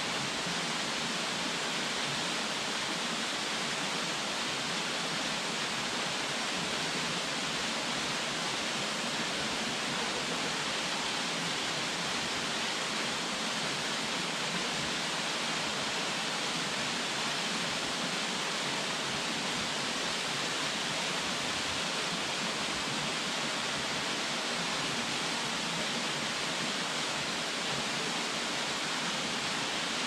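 Minoo Falls, a tall waterfall, pouring into its plunge pool: a steady, even rush of falling water, bright and hissy, with little deep rumble.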